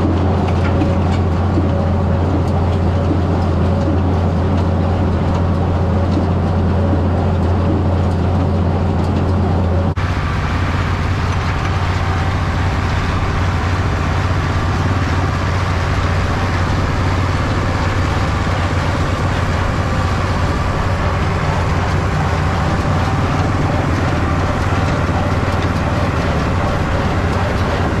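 Allis-Chalmers 200 tractor engine running steadily while it powers a New Idea square baler picking up and baling a windrow of hay. The sound changes abruptly about ten seconds in, where the steady low hum weakens and the mix turns noisier.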